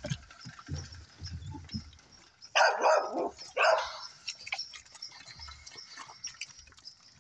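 American Pit Bull Terrier puppy eating bear meat, chewing and tearing at it with many small clicks, and two louder noisy bursts about two and a half and three and a half seconds in.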